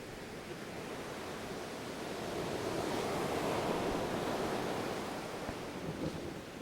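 Ocean surf: a wave swelling in, peaking about halfway through and washing back out.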